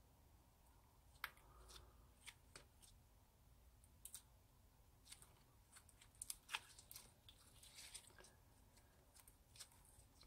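Clear glitter-and-sequin slime being kneaded and stretched by hand: faint, irregular sticky clicks and pops, coming thicker around the middle.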